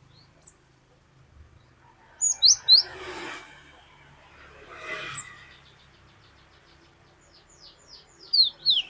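Cinereous tit (glatik batu) singing clear whistled notes: a pair of sharp falling whistles about two seconds in, a run of faint quick notes in the middle, and another pair of falling whistles near the end.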